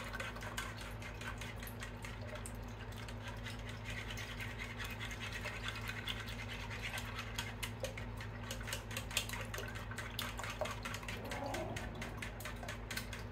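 A whisk beating raw eggs in a pot, clicking rapidly against the pot's sides and bottom as the yolks are broken up, over a steady low hum.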